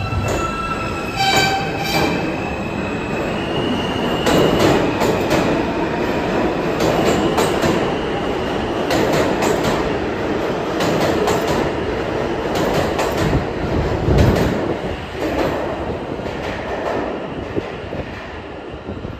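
R160 subway train pulling out of the station: its electric traction motors whine in stepped, rising tones as it starts moving. Then come the rumble and rhythmic clatter of the cars' wheels over the rail joints, with some wheel squeal, fading near the end as the train leaves.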